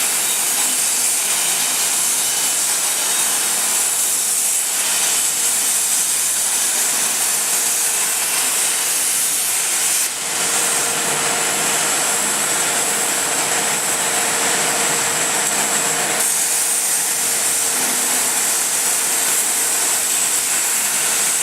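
CNC plasma cutting torch cutting metal: a loud, continuous hiss from the plasma arc. A faint steady hum underneath grows stronger from a brief dip about ten seconds in until about sixteen seconds in.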